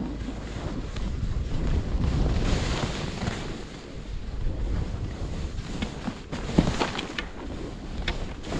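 Wind buffeting the camera's microphone over the hiss and scrape of skis sliding across packed snow, swelling louder for a few seconds, with a few sharp clicks later on.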